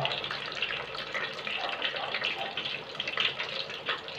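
Stuffed crab shell deep-frying in a pot of hot oil: steady sizzling and bubbling with many fine crackles.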